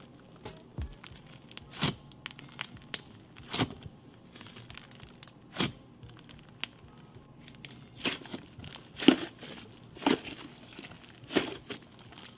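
Slime being squished and stretched by hand, with irregular sharp pops and crackles. The pops come thickest and loudest in the last few seconds.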